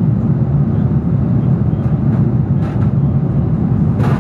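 Steady low rumble of a jet airliner's cabin at cruise altitude, heard from a window seat. A short sharp click comes near the end.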